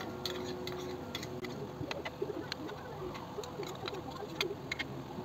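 Thick chicken and tomato curry bubbling in a pot on the hob, with scattered light clicks of a metal spoon against the spice bowl and the pot.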